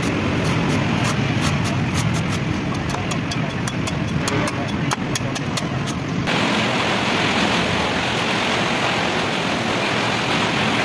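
Cleaver chopping a young green coconut on a wooden block: quick sharp chops, about three or four a second, over steady traffic noise. The chopping stops abruptly about six seconds in, leaving only the traffic noise.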